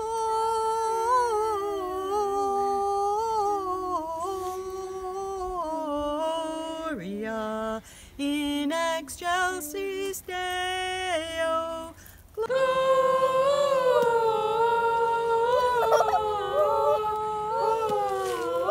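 Unaccompanied singing by a woman's voice, with long held notes that slide between pitches, then a quicker run of short notes. About twelve seconds in it cuts to a louder group of voices singing together.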